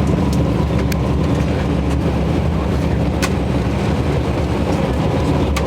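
Steady low engine and road drone heard inside a moving tour bus, with a few sharp little clicks or rattles now and then.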